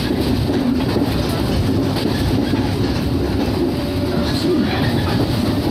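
Shinano Railway 115 series electric train running, heard from inside the car: a steady rumble of wheels and running gear on the rails.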